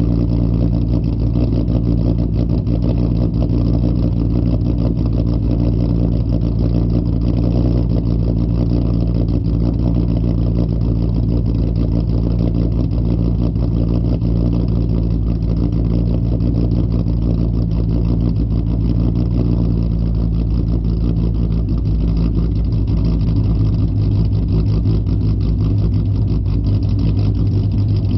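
2008 Ford Mustang's 4.0 SOHC V6 idling steadily through a loud exhaust.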